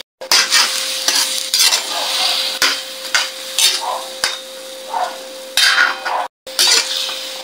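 Metal spatula stirring chicken pieces in oyster sauce in a wok, scraping in repeated strokes over the sizzle of the simmering sauce. The sound cuts out briefly near the start and again about six seconds in.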